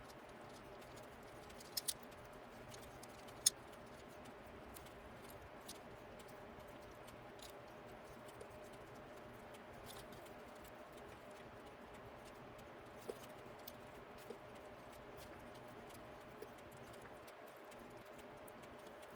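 Wheel bearing being hand-packed with grease: faint scattered clicks and small knocks of the bearing and tools being handled, over a steady low room hum, with the sharpest click about three and a half seconds in.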